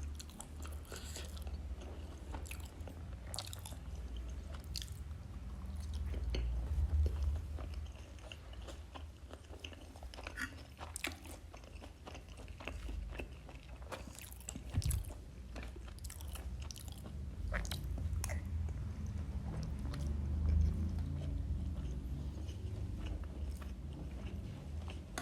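A person chewing and biting food close to the microphone, with wet mouth clicks and small crunches throughout and a low rumble of jaw and mouth movement underneath.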